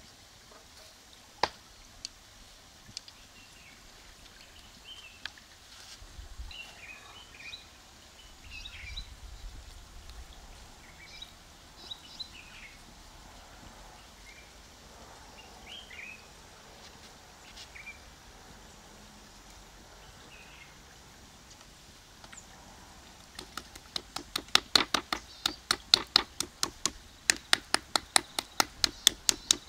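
Scattered bird chirps over quiet outdoor ambience, with a single sharp click about a second and a half in. Near the end comes a fast run of sharp slaps, about four a second, from hands patting and clapping spice onto the chicken.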